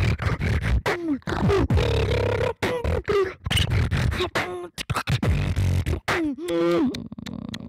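Solo beatboxing: sharp mouth-made kick and snare hits over a low hummed bass line, broken by pitched vocal sounds that sweep down in pitch. About six and a half seconds in a wavering pitched vocal sound rings out, and the beat thins out near the end.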